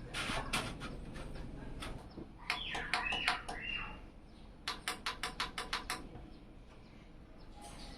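Animal chirping: two quick runs of sharp chirps, about six a second. The first run has a sweeping call mixed in.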